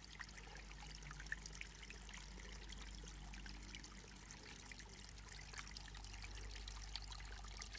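Small mountain stream trickling and splashing steadily and softly.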